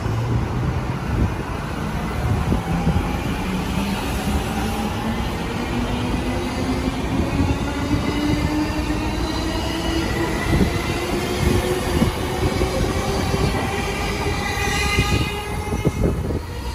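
JR Keiyo Line electric train pulling out of the station, its traction motors giving a whine that climbs steadily in pitch as it accelerates, over the rumble of wheels on the rails. The sound drops a little near the end as the last car goes by.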